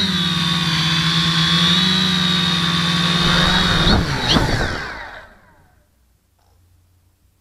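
HobbyKing Dead Cat FPV quadcopter's motors and propellers running with a steady whine. About four seconds in it lands with a couple of knocks, and the motors wind down in falling pitch to a stop about a second later.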